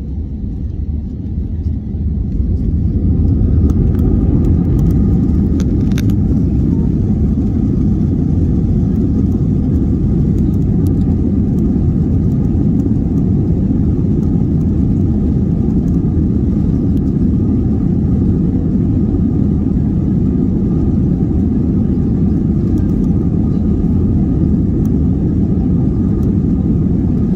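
Airbus A320-family airliner's twin jet engines heard from inside the cabin, spooling up over the first few seconds to takeoff power, then a steady deep rumble as the plane rolls down the runway.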